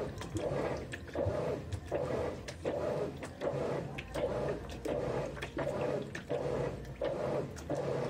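GE 15 kg top-load washing machine agitating a load of towels in a high water level: the water sloshes in the tub in a steady rhythm, about three strokes every two seconds, over a low motor hum with light clicks between the strokes.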